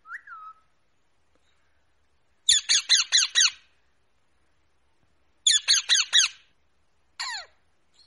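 Pet ring-necked parakeet screeching: a faint short whistle at the start, then two quick runs of about five harsh calls each, about three seconds apart, and a single call near the end.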